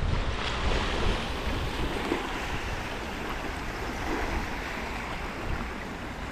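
Wind buffeting the microphone over a steady rush of river water along the shore.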